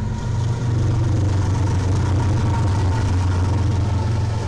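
BNSF diesel-electric freight locomotives passing close by, their engines making a loud, steady low drone.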